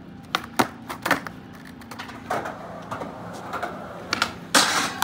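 Skateboard: a few sharp clacks of the board and trucks over the rolling of its wheels on asphalt, then a loud rasping scrape of about half a second near the end. The scrape is the trucks grinding the metal handrail in a back 50-50.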